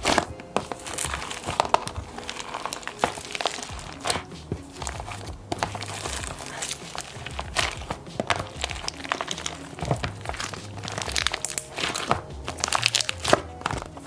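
Thick white slime packed with foam beads and marshmallow beads being squished and pressed, giving many small irregular crackles and pops, with background music underneath.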